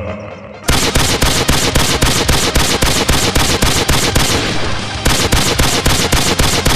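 Rapid automatic gunfire as a video-game sound effect, about seven to eight shots a second in one long continuous burst that starts under a second in.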